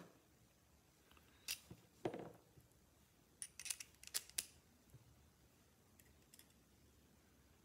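Light clicks and taps of small lock parts and screws being handled and set down on a bench mat while a high-security lock cylinder is reassembled: a soft knock about two seconds in, then a quick cluster of sharp clicks a second or two later, and a few faint ticks near the end.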